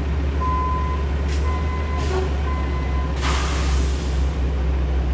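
A construction vehicle's reversing alarm beeping about once a second, which stops about three seconds in, followed by a roughly one-second hiss of an air brake, over a steady low engine rumble.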